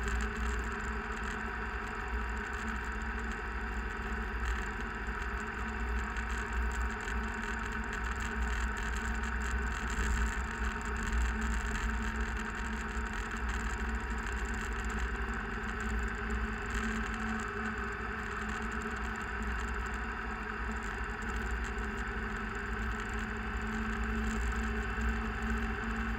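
Steady vehicle engine running with wind and tyre noise while travelling along a gravel road.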